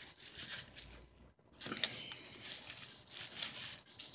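Irregular rustling and metal scraping as a W123 brake caliper half is handled on a shop rag and a stuck metal piece is worked loose from it, with a sharp metallic click a little under two seconds in.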